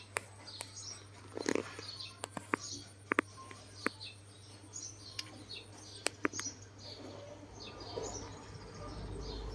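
Small birds chirping, short high calls scattered throughout, with a dozen or so sharp clicks in the first half.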